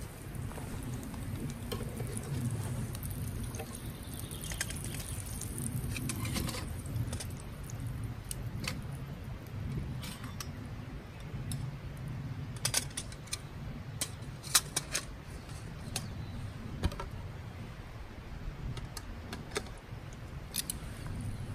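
Light metal clinks and clatter of a Trangia 27 aluminium cook set being handled as pans are swapped on the spirit stove, a cluster of sharp clicks coming about two-thirds of the way in. Under them runs a steady low rumble.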